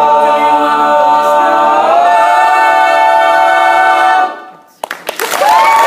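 All-male a cappella group singing and holding the final chord of a song, cutting off together about four seconds in. After a brief pause, applause breaks out near the end.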